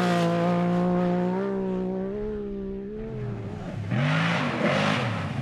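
Off-road race car engine at high revs, holding a steady note for about three seconds and then dropping away. From about four seconds in the revs swing up and down in quick arcs over a hiss of dirt and gravel.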